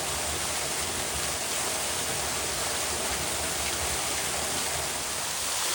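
Small rain-fed waterfall rushing steadily at full flow, swollen by a rainstorm that has just passed.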